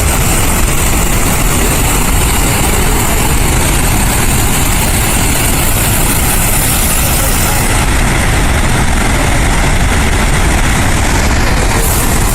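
Summersville Dam's outlet discharging a historic flood release: water roaring out under pressure in a loud, steady rush with a deep rumble underneath.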